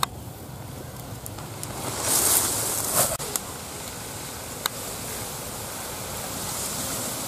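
Wind buffeting the microphone with rustling and handling noise, a louder rush of rustle about two seconds in and a few light sharp clicks around three and five seconds in.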